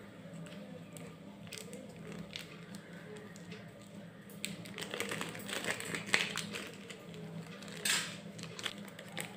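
Thin plastic wrapper of a processed cheese slice being peeled open by hand, crinkling. It starts as faint scattered crackles and gets busier and louder from about halfway, with a couple of sharper crinkles near the end.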